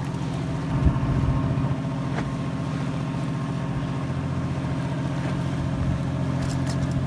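Fishing boat's engine running steadily, a low even drone, with a single knock a little under a second in.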